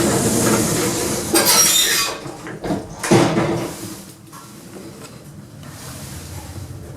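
Passenger lift doors sliding and clunking shut, with a sharp clunk about three seconds in, then a quieter steady hum from the lift car.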